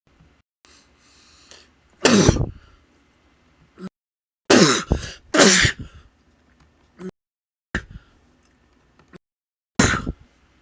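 A man sneezing about five times, each a sudden loud burst whose voice falls in pitch, with a faint breathy intake before the first.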